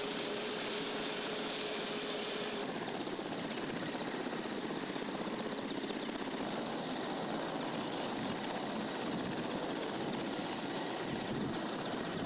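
Mil Mi-series twin-turbine helicopter running on the ground with its main rotor turning: steady rotor and turbine noise with a high whine over it.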